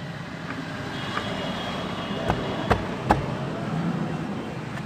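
Ford Figo running with a steady hum, broken by three sharp knocks about half a second apart in the middle: the noise the owner puts down to an axle problem.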